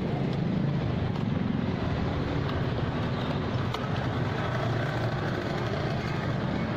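Steady low engine rumble of a motor vehicle at idle or low speed, with a haze of street noise.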